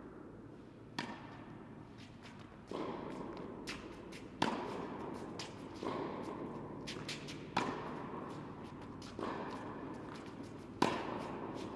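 Tennis rally on an indoor court: a racket striking the ball about every one and a half to two seconds, alternately harder and softer hits, each ringing on in the echo of the hall.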